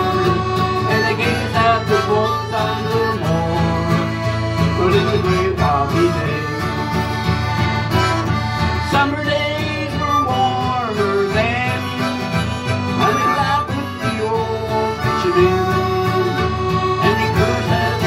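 Live trio of diatonic button accordion, harmonica and strummed acoustic guitar playing a country tune together.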